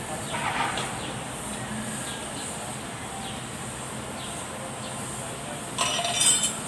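Metal clinking as a steel tool is worked and handled on a tractor frame: a short clink about half a second in and a louder, ringing metal clatter near the end, over steady workshop background noise.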